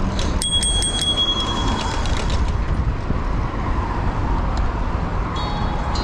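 Bicycle bell rung in a quick run of about four or five dings about half a second in, its tone ringing on for about a second and a half. Steady low wind rumble on the microphone from riding runs underneath.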